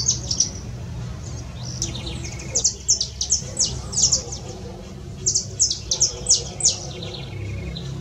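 Small songbird singing in short phrases of quick, high, down-slurred notes, three phrases in all: one at the very start, one around the middle and one a little past two-thirds through. A steady low rumble runs underneath.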